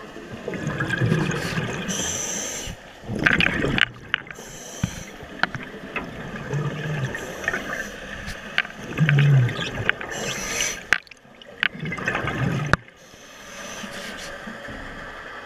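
Underwater sound picked up by a diver's camera: bursts of bubbling and water noise every few seconds, with a few sharp knocks and clicks.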